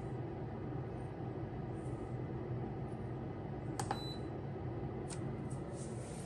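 Yashe food dehydrator's fan running with a steady hum, and one button click with a short high beep about four seconds in as the timer is stepped up to 16 hours. A few faint knocks near the end.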